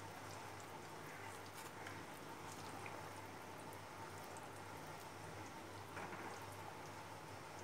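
Thin curry gravy simmering in a kadai: faint bubbling with many small scattered pops, over a low steady hum.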